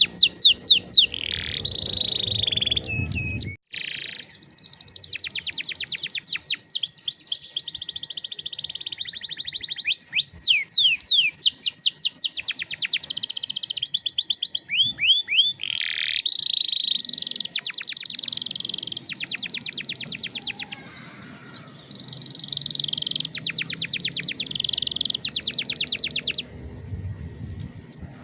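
Domestic canary singing a long, continuous song of fast trills of repeated notes and quick up-and-down whistled sweeps, with brief pauses.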